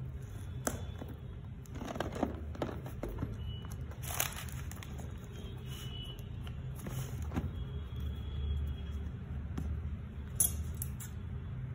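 Cardboard smartphone box being handled and opened: scattered taps, scrapes and rustles, with a louder scrape about four seconds in and a sharp click near the end, over a steady low hum.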